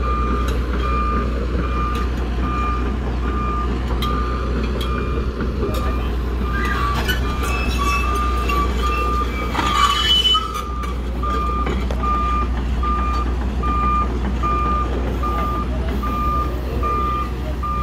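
XCMG XE215C excavator's travel alarm beeping evenly over and over as the machine tracks along, over the steady low drone of its Isuzu 6BG1 diesel engine.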